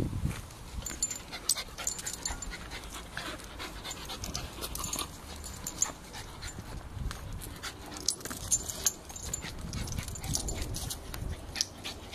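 Terriers panting, with many short scratching and clicking sounds scattered throughout.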